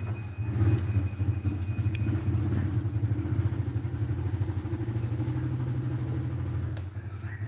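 A motor vehicle engine, likely a motorcycle, running steadily with a low pulsing hum that drops away near the end.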